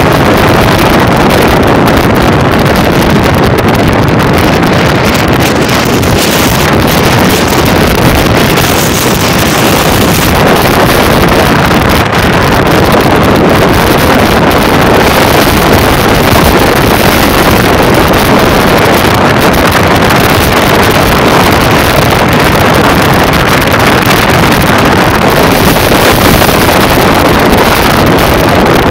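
Wind rushing over a phone microphone held out of a moving car's window, with road noise: a loud, steady roar.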